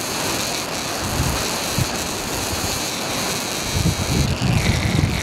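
Wind buffeting the microphone in low gusts over a steady rushing hiss, strongest about four seconds in.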